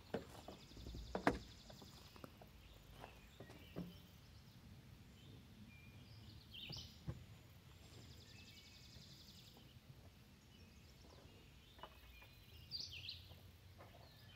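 Faint outdoor ambience with birds calling: a buzzy high trill twice and a few short falling chirps. Scattered light knocks, the sharpest about a second in.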